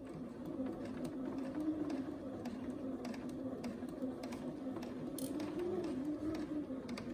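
Electric sewing machine running steadily as it stitches a seam through pieced quilting cotton. The motor hum drifts slightly up and down in pitch as the speed varies.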